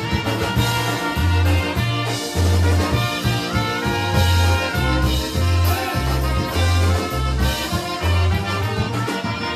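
Live polka band playing: trumpets and saxophone carry the melody over drums and an alternating two-note bass line of about two notes a second.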